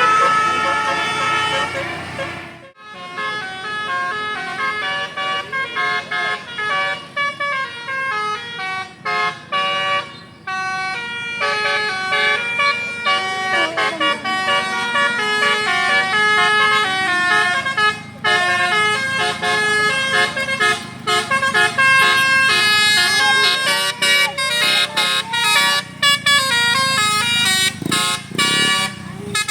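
Bus 'telolet basuri' musical horn playing a fast tune of short stepping notes, cut off abruptly about three seconds in and then carrying on with more melody.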